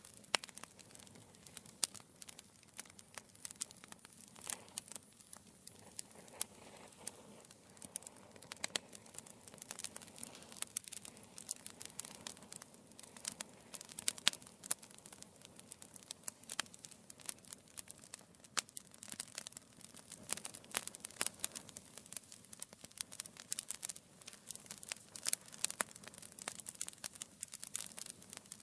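Wood fire crackling in a fireplace: irregular sharp pops and snaps of burning logs over a soft steady hiss of the flames.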